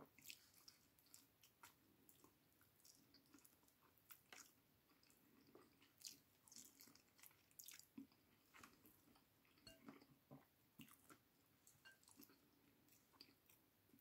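Faint close-up eating sounds: a person chewing chicken afritada and rice eaten by hand, with many short, irregular clicks and smacks.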